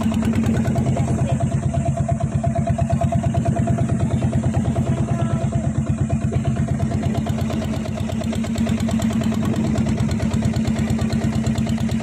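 Engine of a small motorized outrigger boat running steadily at an even speed, with a fast regular putter.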